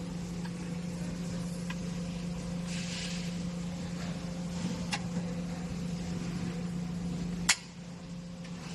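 Light metallic ticks and taps from sheet-metal cabinet parts being handled and fitted, with one sharp metal click about seven and a half seconds in, over a steady low hum.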